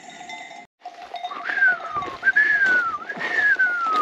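A person whistling three long falling notes in a row, each sliding smoothly down in pitch, a herding whistle calling grazing cattle to move on home.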